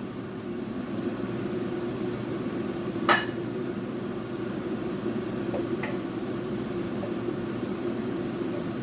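Covered pot of chicken curry at a full boil, giving a steady low rumble. One sharp clink sounds about three seconds in, and two faint ticks follow a few seconds later.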